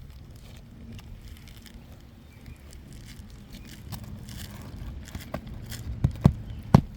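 Asphalt roof shingles rustling as they are handled, then sharp hammer blows starting about five seconds in as the shingles are nailed back in place.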